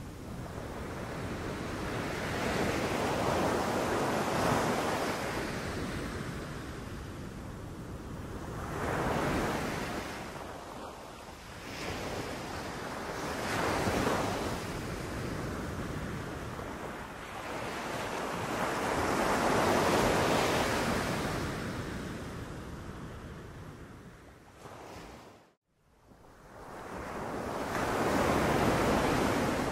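Sea waves breaking on a beach in slow surges, each one building to a rushing crash of surf and washing back out, about five in all. The sound cuts out abruptly for a split second near the end, then the surf builds again.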